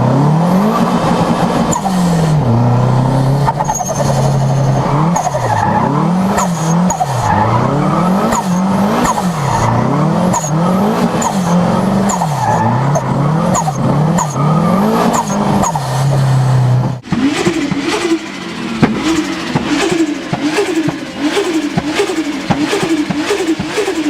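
Turbocharged car engine being revved over and over, the pitch rising and falling about once a second, with a short high chirp of turbo flutter as each rev drops. About 17 seconds in, a different turbo engine takes over, blipped in quicker, shorter revs with a rapid fluttering chatter.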